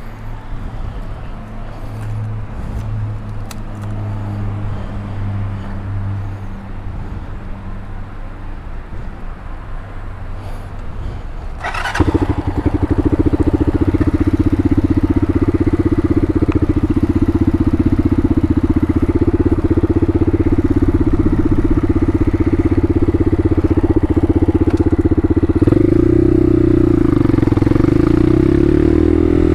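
Bashan Motomax 250 supermoto engine running at a low, steady idle, then about halfway through jumping suddenly to a much louder, higher, steady note as it is revved up and ridden, with the pitch wavering near the end.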